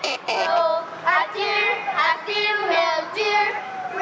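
Children singing a song, one melody line with drawn-out notes.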